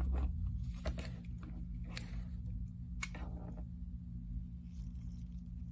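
Soft handling noises from a metal hair clip, ribbon and hot glue gun being worked by hand: a few light clicks and rustles, roughly one a second, over a steady low hum.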